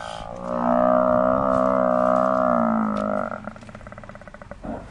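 African buffalo cow bawling in distress as lions hold her down: one long drawn-out bellow of about three seconds that falls slightly and breaks into a short rattling sound as it ends.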